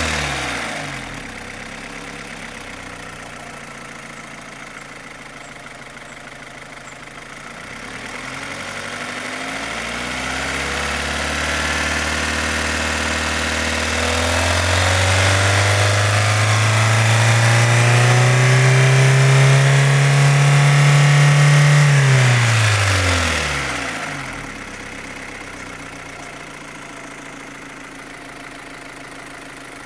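Opel Astra H's Z16XEP 1.6-litre four-cylinder petrol engine ticking loudly like tappets. It drops to idle within the first couple of seconds, is slowly revved up from about eight seconds in, held high, and let fall back to idle about twenty-three seconds in. The tick goes away when fuel to cylinders 3 and 4 is cut, but new tappets on those cylinders did not cure it; the owner wonders whether the non-original camshafts are to blame.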